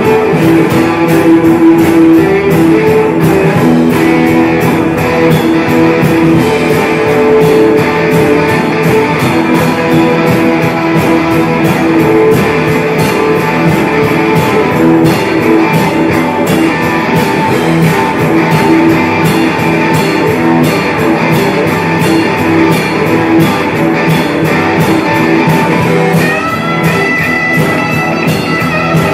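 A rock band playing live: electric guitars strumming over bass and a steady drumbeat, with held high notes coming in near the end.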